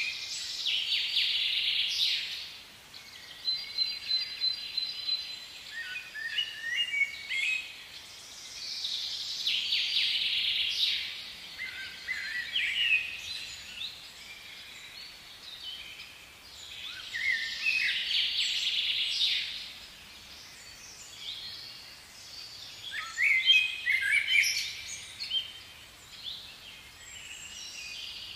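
Songbirds singing: phrases of chirps and trills that come back every four to six seconds, over a faint steady hiss.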